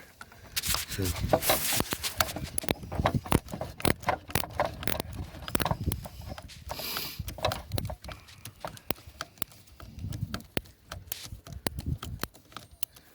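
Irregular clicking and knocking, many sharp clicks at an uneven pace, with faint talk in places.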